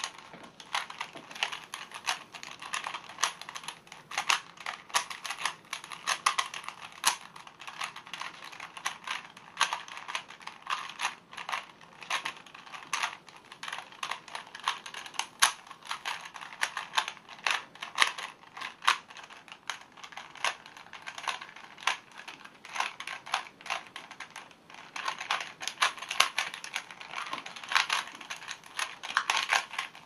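A silicone-lubricated Rubik's cube being speedsolved: its plastic layers turned rapidly by hand, making a fast, continuous run of clicks and clacks.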